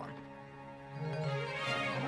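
Cartoon background music, soft at first and growing louder about a second in.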